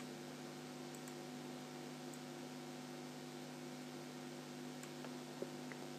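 Steady low electrical hum with faint hiss in the recording, and one faint click near the end.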